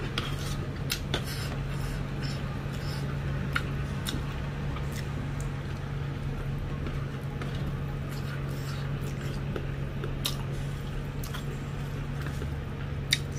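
Fingers squishing and mixing curried rice on a stainless steel plate, with scattered light clicks as fingers and nails touch the metal, and chewing in between. A steady low hum runs underneath.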